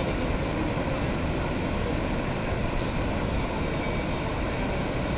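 Floodwater rushing past in a steady, unbroken roar.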